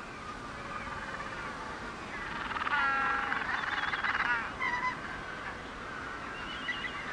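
Magellanic penguins braying in a crowded colony: many overlapping calls, with one louder, pulsing bray from about three to four and a half seconds in.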